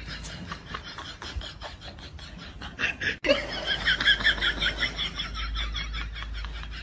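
A rapid, even rasping tick of about five strokes a second. About three seconds in, people break into loud laughter over it.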